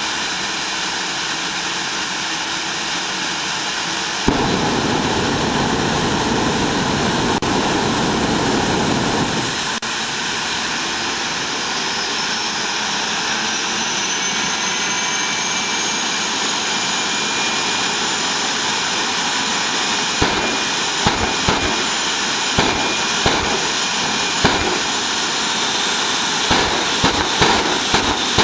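Jet funny car's turbine engine running with a steady high whine, its pitch slowly rising from about ten seconds in, and a heavier low rumble between about four and nine seconds in. From about twenty seconds in, sharp bangs crack out over the whine, coming thick near the end as the exhaust throws out a fireball.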